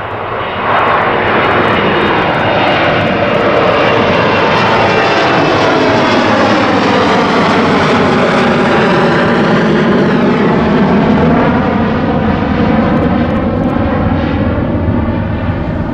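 Sukhoi Superjet 100 twin-turbofan airliner climbing out at takeoff power and passing close by, a loud steady jet noise. It jumps louder about a second in, and its tone sweeps down and back up as the aircraft goes over.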